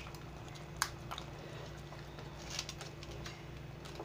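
A few faint, short crackles of crisp appalam (papad) being broken by hand into a pan of simmering dal, over a low steady hum.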